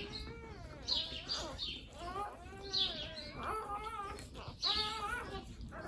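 Newborn puppies squealing and whimpering: a run of thin, high, wavering cries, one after another, some overlapping.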